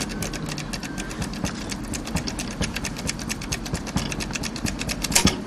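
Foil impressioning tool being jiggled in a dimple lock's keyway: rapid, fairly even metallic clicking, many clicks a second, as the foil is worked against the pins to pick the lock.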